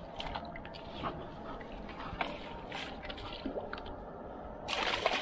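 Water splashing and sloshing as a hooked striped bass flounders at the surface beside a landing net, with small scattered splashes; about four and a half seconds in, a louder burst of splashing begins.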